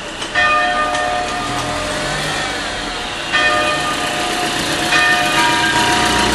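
Church bells in the tower being struck, each stroke ringing on with several clear tones. A first stroke comes just after the start, a second about three seconds later, and a bell of a different pitch joins about a second and a half after that.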